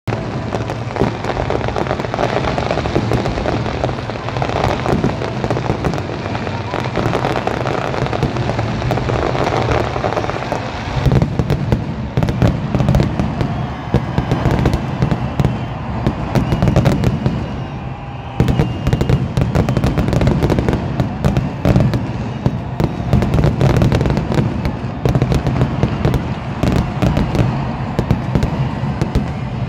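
Fireworks grand finale: a dense, continuous barrage of aerial shell bursts with crackling, many bangs a second overlapping one another. It eases briefly about eighteen seconds in, then comes back as heavy as before.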